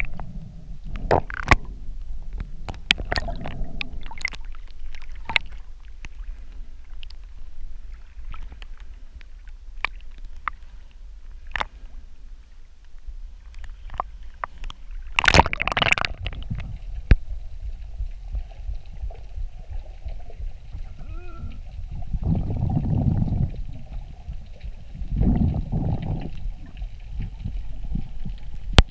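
Water around an underwater camera: a steady low rumble of moving water with scattered sharp clicks, one loud brief splash about halfway through when the camera is at the surface, and two longer sloshing, gurgling rushes near the end.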